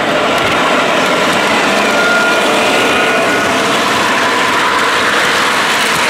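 O-gauge model trains running on three-rail track: a steady rumble and clatter of wheels on the rails, with the hum of the locomotives' motors.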